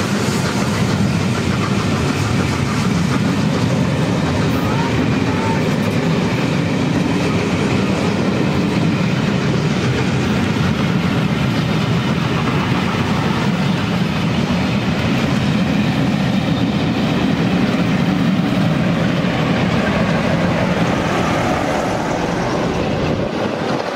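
Passenger coaches of a train rolling past at speed: a loud, steady wheel-on-rail noise.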